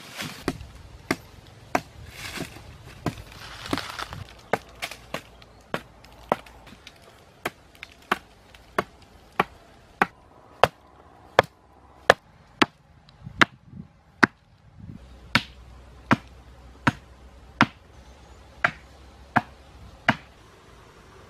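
A blade chopping again and again at the end of a green wooden pole, shaving it to a point for a spear: sharp knocks in a steady rhythm, about one and a half a second, stopping near the end. Leaves and brush rustle over the first few seconds.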